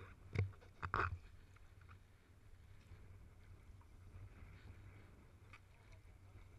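Sea water lapping and sloshing against a camera held at the waterline, with two loud splashes against it about half a second and a second in, then a steady low rumble of moving water.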